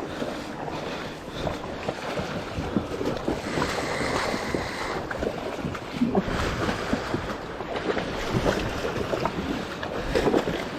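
Water churning and splashing around a kayak in fast tidal current, with irregular small knocks and wind buffeting the microphone.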